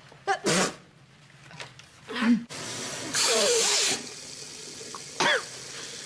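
A woman with a head cold sneezing, then blowing her nose hard into a tissue in one blow of nearly a second, about three seconds in.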